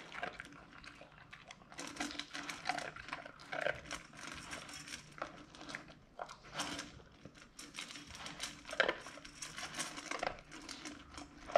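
Golden retriever puppy eating dry kibble from a stainless steel bowl: irregular crunching and chewing, with quick clicks of kibble in the metal bowl.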